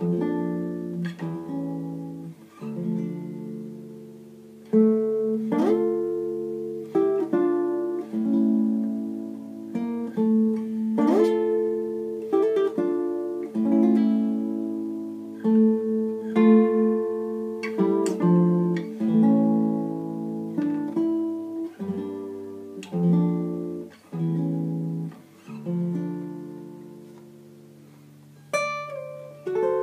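Classical guitar played solo fingerstyle: a plucked melody over held bass notes, with now and then a struck chord. Twice the playing pauses and the notes ring out and fade, about four seconds in and again near the end.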